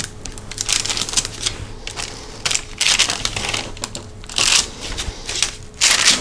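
A fork pressing crisscross marks into peanut butter cookie dough on a parchment-lined metal cookie sheet: irregular light clicks and taps as the tines strike the pan, with a few brief rustles of the parchment paper.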